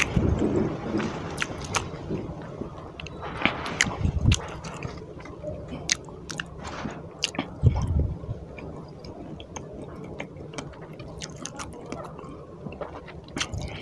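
Close-miked wet chewing of a mouthful of rice and fish curry, with many short lip-smacking clicks and a few heavier low thuds about four and eight seconds in.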